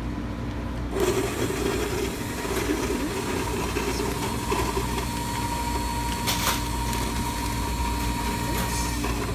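Self-serve coffee dispensing machine running after a button press, its motor and pump whirring as it fills a paper cup. A steady tone joins about halfway and stops just before the end, and a sharp click comes about six and a half seconds in.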